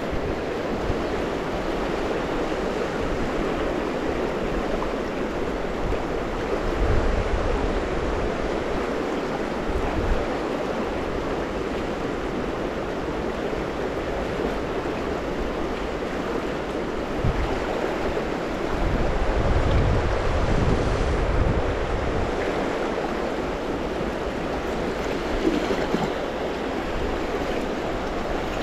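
Steady rush of river rapids. Wind buffets the microphone in low rumbling gusts several times, longest for a few seconds past the middle.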